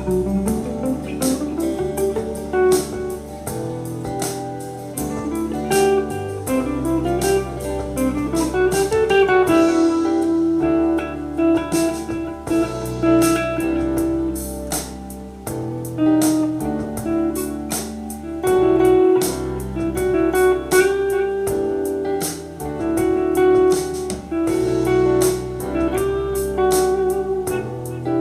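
Electric guitar playing a lead line in E minor over a backing track with a steady drum beat and bass, with gliding, sliding runs of notes about six to nine seconds in.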